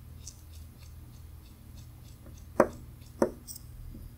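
Small metal clicks of a watchmaker's screwdriver and tweezers working on a watch movement in a movement holder as the pallet fork bridge comes off. Faint light ticking at first, then two sharper clicks with a short ring about two and a half and three seconds in.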